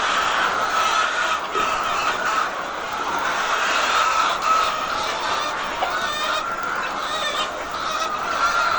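A large flock of laying hens clucking and calling all at once, a steady chorus of many overlapping calls.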